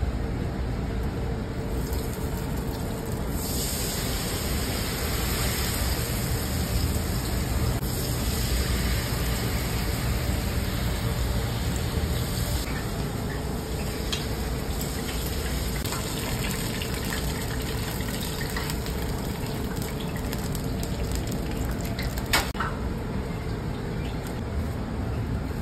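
Hot oil sizzling steadily as a battered anago eel deep-fries for tempura, brighter and hissier from about three seconds in and easing after about twelve seconds, over a steady low rumble. A single sharp click near the end.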